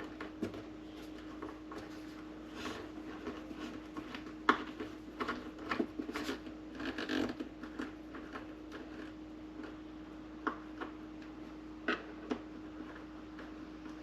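Irregular small clicks and knocks of a screwdriver and screw being worked while the last screw is driven into the coffee maker's bottom cover, over a steady hum.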